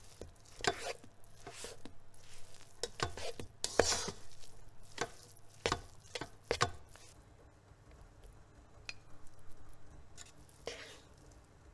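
Plastic rice paddle stirring and fluffing cooked rice in a rice cooker's inner pot: a run of soft scrapes and taps against the pot, with rice squishing, over the first seven seconds, then a single scrape near the end.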